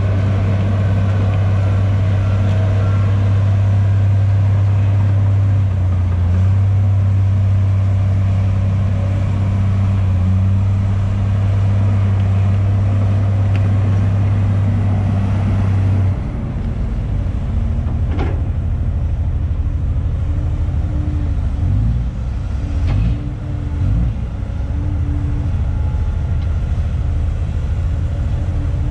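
Diesel engines of heavy earthmoving machines, a crawler bulldozer and an excavator, running at work with a steady low drone. The deepest part of the drone drops away about halfway through, and a single sharp knock sounds a little later.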